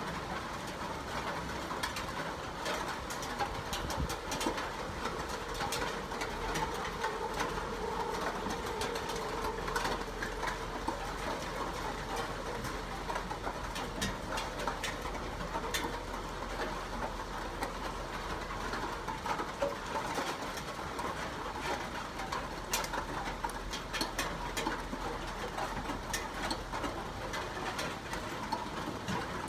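Steady rain falling, an even hiss with many sharp drops pattering and dripping throughout.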